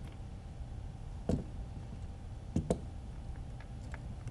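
A few light knocks and clicks as a drone frame with its motors is handled and turned over on a rubber work mat: one knock about a second in, two close together a little past halfway, then a few faint ticks. A steady low hum runs underneath.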